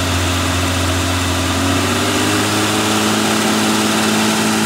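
Car engine running just above idle with the throttle opened slightly, its pitch rising a little about two seconds in. The engine is being revved during an exhaust back-pressure test that shows the catalytic converter is not restricted.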